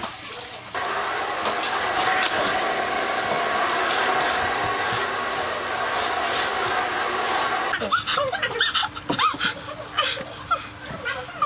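Vacuum cleaner running steadily for about seven seconds. It switches on suddenly just under a second in and cuts off abruptly, after which children's voices follow.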